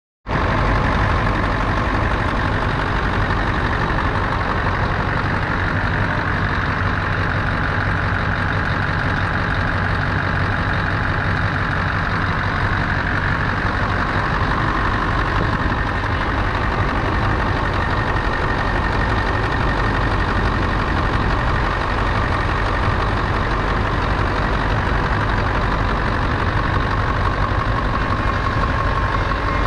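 2004 Scania 580's 15.6-litre V8 diesel engine idling steadily.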